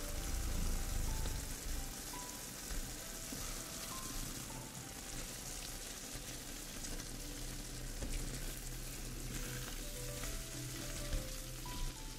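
Tomatoes, onion and canned tuna sizzling in oil in a frying pan as a silicone spatula stirs them, with a few light scrapes and ticks against the pan.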